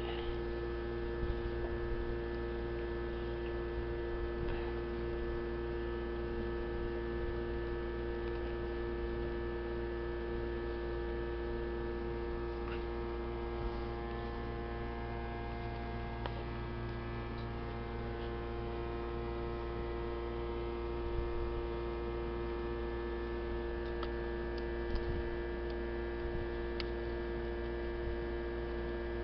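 Steady electrical hum made of several fixed tones, with a few faint soft clicks here and there.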